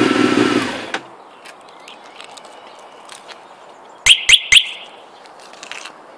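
Honda CBR600 F2's inline-four engine running steadily, then cutting off abruptly about a second in. About four seconds in, a bird gives three loud, sharp chirps in quick succession over a quiet background.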